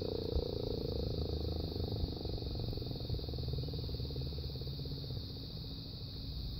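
American Signal T-128 rotating warning siren winding down after a growl test, its low growling tone slowly fading as the rotor coasts to a stop.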